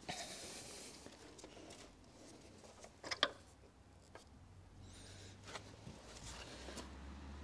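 Faint clicks and light knocks of hand tools and parts being handled during the water pump refit, with a sharper cluster of clicks about three seconds in.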